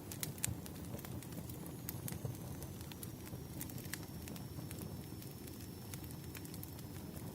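Wood fire burning, with irregular sharp crackles and pops of firewood over a steady low rumble of flame.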